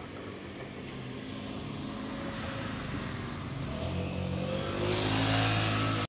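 A road vehicle's engine drawing near and speeding up, getting steadily louder, with its engine note strongest over the last two seconds.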